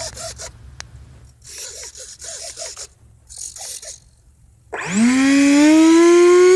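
Electric ducted fans of a Sapac EF2000 RC Eurofighter model jet spooling up: a sudden whine starts near the end, rises in pitch for about a second, then holds steady and loud. Before it, a few brief rustling noises.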